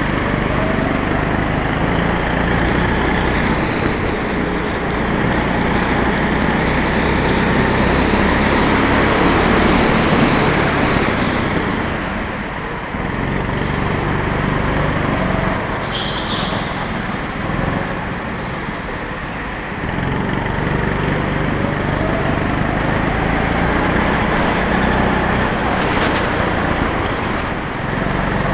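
Go-kart engine heard from onboard, running hard and rising and falling in pitch with the throttle through the corners, easing off twice, about halfway and about two-thirds of the way through.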